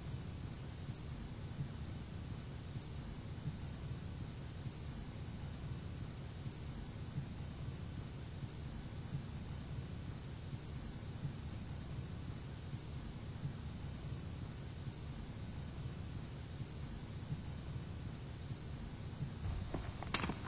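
Singing insects trilling steadily in a high, slightly pulsing chorus over a low rumble. Footsteps start on gravel just before the end.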